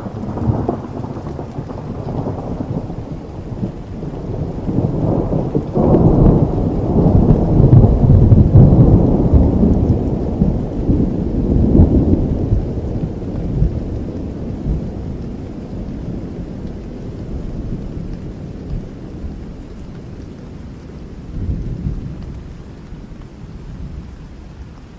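A long roll of thunder over steady rain: it breaks in suddenly, rumbles loudest for several seconds in the first half, then slowly dies away, with a smaller swell near the end.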